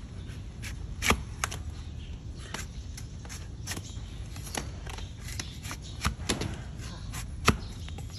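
Overgrown donkey hoof being pared with a long flat hoof-trimming blade pushed down against a wooden block: irregular sharp crunching cuts as slices of horn shear off, the loudest about a second in and again near the end. A steady low rumble runs underneath.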